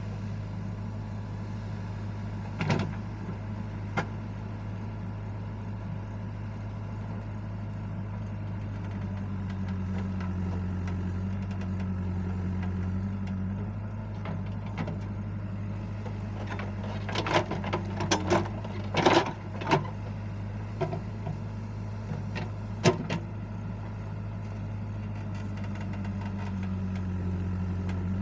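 Old Kirloskar JCB backhoe loader's diesel engine running steadily, its note swelling twice, about a third of the way in and near the end. Sharp knocks and clanks punctuate it, a few early on and a cluster past the middle.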